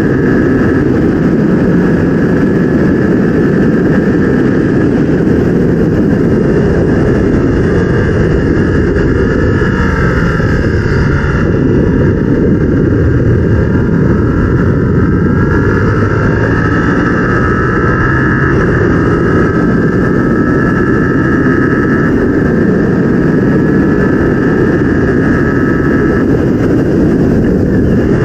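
Yamaha R7's 689 cc parallel-twin engine running hard at speed, its pitch falling for a couple of seconds partway through, then climbing again as the revs build, under a loud, steady rush of wind noise.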